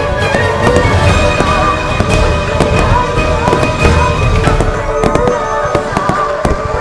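Aerial fireworks shells bursting and crackling in rapid succession, many bangs close together, with background music playing over them; the bangs stop near the end.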